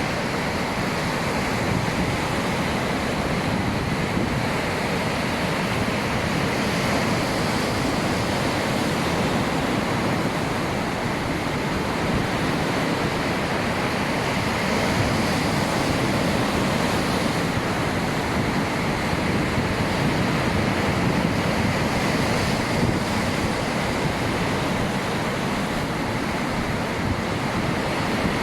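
Sea surf: foamy waves rolling in and washing onto the shore in a continuous, steady rush with gentle swells in level.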